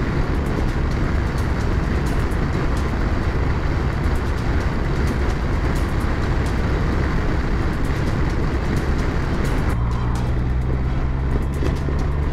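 BMW R 1200 RS motorcycle's boxer-twin engine running steadily under way, with dense wind and road noise. About ten seconds in, the wind noise drops away and the engine note changes.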